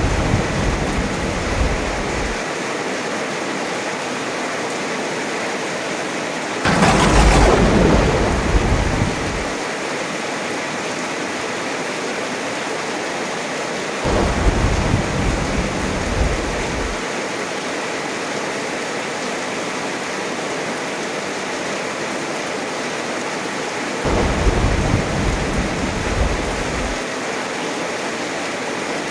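Heavy rain falling steadily, with thunder: a rumble dying away at the start, a louder, sharper clap about seven seconds in, and further low rumbles about halfway through and near the end.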